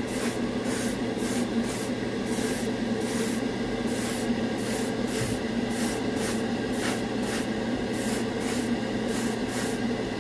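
Airbrush spraying lacquer paint in short, quickly repeated bursts of hiss, about two a second, as the trigger is worked on and off. A steady low hum runs underneath.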